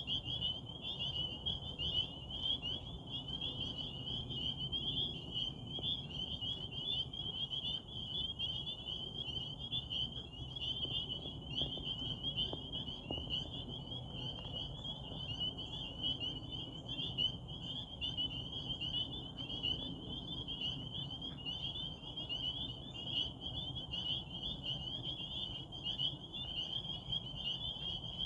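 Dense chorus of many frogs calling at once from a pond. Their high-pitched calls overlap into a continuous shrill din that stays steady throughout.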